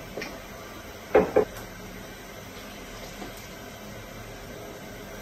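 Two quick knocks about a second in, with a faint click just before: a wooden spoon and pestle knocking against a small mortar as pounded crayfish and pepper are scraped out of it.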